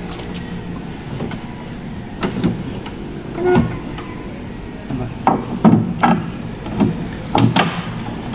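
A series of irregular knocks and thuds, about eight, clustered in the second half, over a steady low background.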